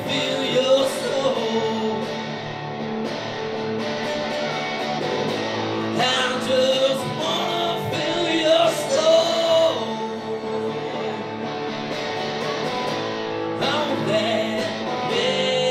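Live solo song: a man sings into a microphone while strumming an acoustic guitar, with sung phrases near the start, in the middle and near the end, and guitar alone between them.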